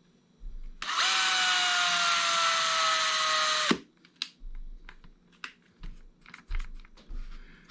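Cordless drill running for about three seconds as it drills out the front rivet post of a die-cast Hot Wheels base, its whine sinking slowly in pitch on a nearly dead battery, then stopping suddenly. Light clicks and taps of handling follow.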